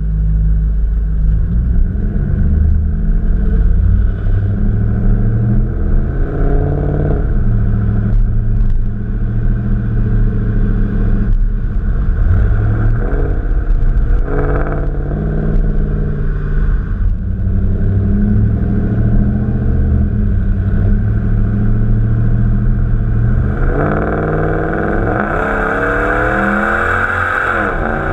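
Dodge Ram's 5.7-litre Hemi V8 on its stock exhaust, running low and steady for most of the time, then revving up with rising pitch near the end and dropping back once.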